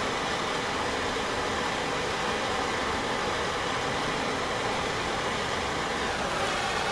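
Handheld gas torch burning with a steady hiss, its flame held against coated thatch.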